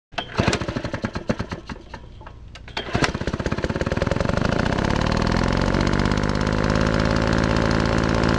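An engine sputtering with uneven pops and knocks, then a sharp crack about three seconds in, after which it catches and runs steadily, rising a little in pitch.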